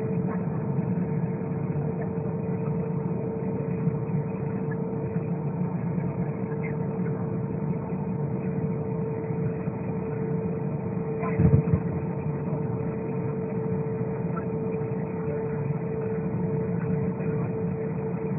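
Airbus A320 cabin noise: the steady drone of the jet engines and airflow, with a steady whine running through it. There is a single thump about eleven seconds in.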